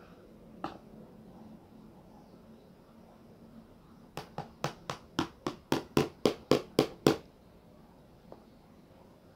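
One sharp knock just under a second in. Then a quick run of about a dozen sharp taps, roughly four a second, getting louder and stopping suddenly.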